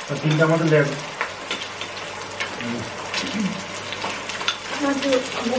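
Mealtime sounds at a hotpot table: scattered clinks and taps of chopsticks and spoons on bowls over a steady hiss from the simmering hotpot, with brief voices.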